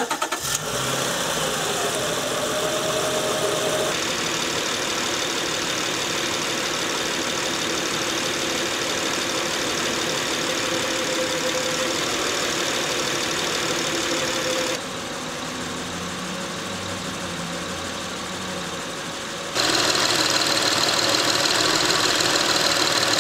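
2006 Acura TL's V6 engine idling, heard up close at the PCV valve during a valve test, with a steady whooshing hiss over the engine's run. The sound drops abruptly about 15 seconds in and comes back up about 20 seconds in.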